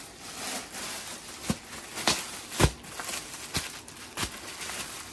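Garments being handled and laid out: rustling, with about five sharp knocks, the loudest a little past halfway.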